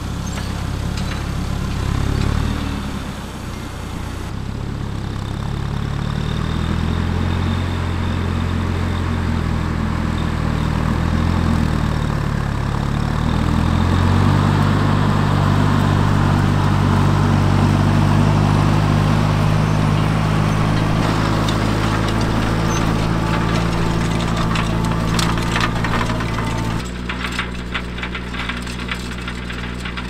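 Fendt 415 Vario tractor's four-cylinder diesel engine running, its note rising and falling a few times, with an abrupt change in level near the end.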